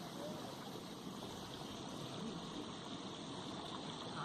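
Waterfall: water pouring and rushing as a steady, even noise.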